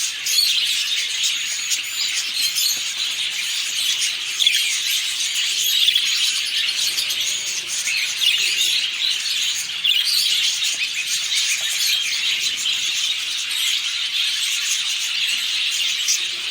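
Many budgerigars chattering and chirping at once in a dense, continuous flock chatter, full of short high chirps and squeaks.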